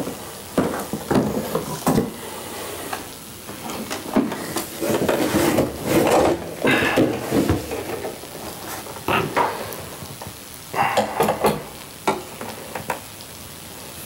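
Handling noise as a flat-screen TV is lifted and hooked onto a wall mount: irregular knocks, clunks and scrapes of the TV's bracket against the mount, denser in a couple of bursts.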